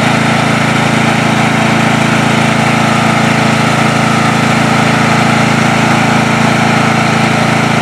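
Small engine running steadily at a constant speed, close and loud, with no change in pitch.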